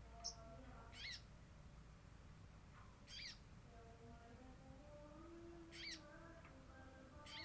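Sogon bird lure call, a female calling the male: short, high chirps repeated every few seconds, five of them, over faint lower tones of background noise.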